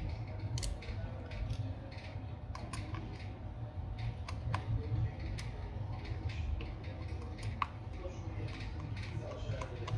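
Irregular small clicks and taps of metal parts and tools on an opened Samsung Galaxy Fold 5: a metal shield plate is lifted off and a metal pry tool is handled. A steady low hum runs under them.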